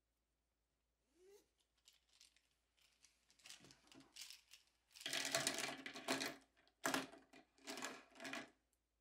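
A fabric pencil case being unzipped, then a bundle of plastic pens rattling and clattering out of it onto a hard desk top. The clatter is loudest about halfway through, and a sharp click of a pen landing comes soon after.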